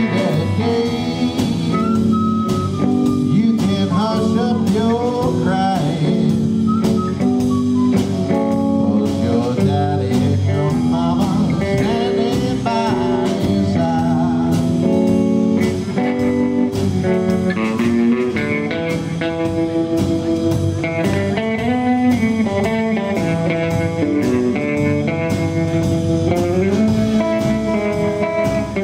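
Background music: a bluesy song with singing and guitar over a steady drum beat.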